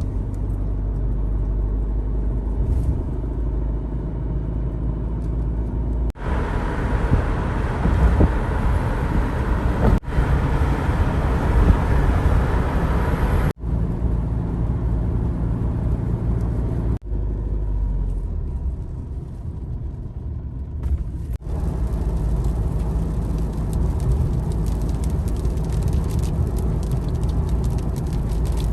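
Steady low rumble of a moving car's engine and tyres on the road, with a rushing hiss in some stretches, made up of several short clips that cut off abruptly one after another.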